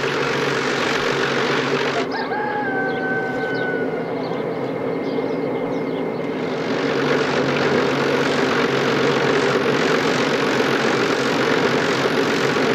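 Willow-peeling machine running: its drum hums steadily while bunches of willow rods pressed against it give a loud scraping hiss as the bark is stripped. The hiss eases off about two seconds in and comes back strongly a few seconds later. A short, slightly falling call sounds briefly about two seconds in.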